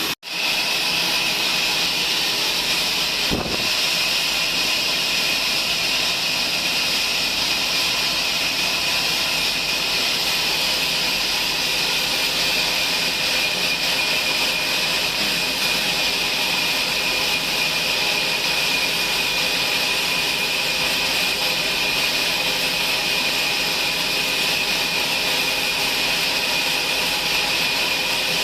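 Sawmill band saw running steadily with a high hissing whine, with a single click about three and a half seconds in.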